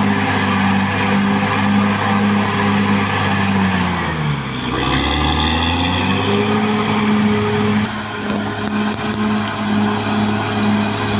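Caterpillar D6R XL bulldozer's diesel engine running under work, a steady drone that pulses about twice a second over a noisy clatter. About four seconds in, the revs drop sharply and climb back over the next two seconds.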